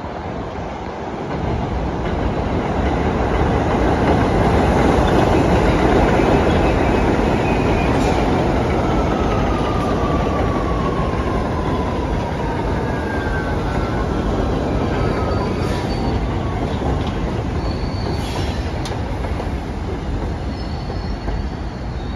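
A New York City 1 train of R62A subway cars running past on the elevated steel structure. The rumble and clatter of the wheels on the rails builds to its loudest a few seconds in, then slowly fades as the train moves away. Thin high wheel squeals come in around the middle, some gliding down in pitch, with higher squeals near the end.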